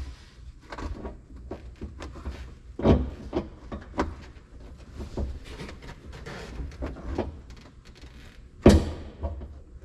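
Irregular knocks, taps and rustling scrapes of a headliner panel being pushed and shifted up against a pickup cab's roof, with two louder thumps, about three seconds in and near the end.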